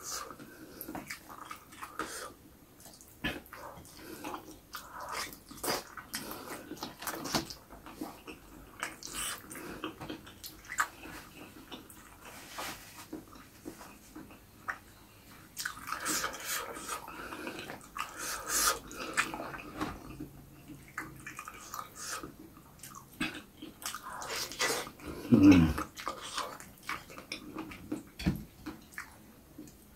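Close-miked eating sounds: chewing and wet lip-smacking with many sharp mouth clicks as rice and fried tofu are eaten by hand. About 25 seconds in comes one short, loud sound that drops in pitch.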